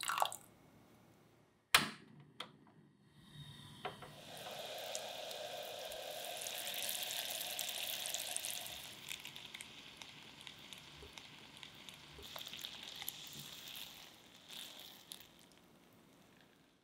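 Water poured briefly onto sugar in a saucepan, and a sharp clink about two seconds in. Then sugar syrup boiling in the pan with a steady fizzing bubble that grows quieter in the second half as it cooks down towards caramel.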